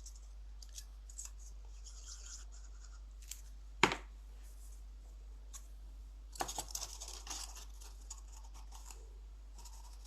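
Paper card stock being handled and pressed into place: faint rustling and scraping, with one sharp tap about four seconds in and a short spell of rustling a couple of seconds later.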